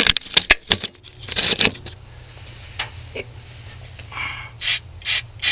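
Short hissing bursts of an aerosol can of ether starter fluid being sprayed into the carburetor, with a few sharp clicks of handling in the first second and three quick bursts near the end.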